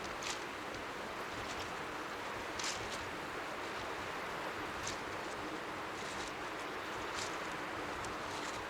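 Strong sea wind and faint lapping waves blending into a steady, even white-noise hiss. Brief high crackles cut through it about every two seconds.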